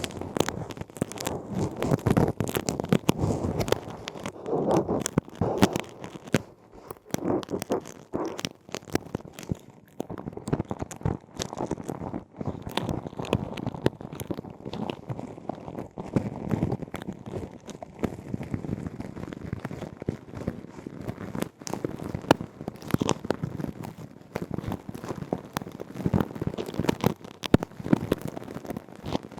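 Close-miked ear-cleaning sounds in an ear microphone's canal: an ear pick scratching and crackling in irregular strokes, with many small clicks.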